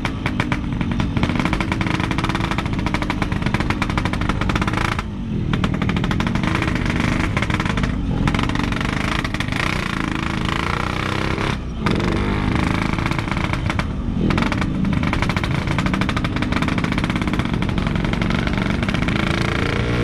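Yamaha RX-King's 135 cc two-stroke single-cylinder engine running hard through a noisy exhaust as the bike rides in traffic: a rapid, crackling drone. It drops off briefly four times.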